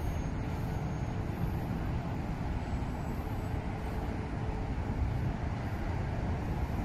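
Steady low rumble of a slow-moving train of new R211T subway cars rolling away along street-level track.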